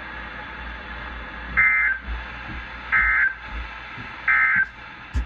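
NOAA Weather Radio SAME end-of-message code: three short, raspy digital data bursts, about a second and a half apart, over the receiver's steady static hiss. These bursts mark the end of the warning broadcast.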